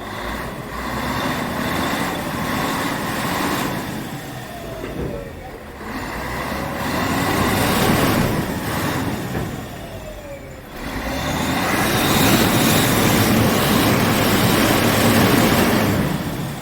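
Motorboat engine noise swelling and fading three times, the last and loudest swell coming about eleven seconds in. A falling tone can be heard as each of the first two fades.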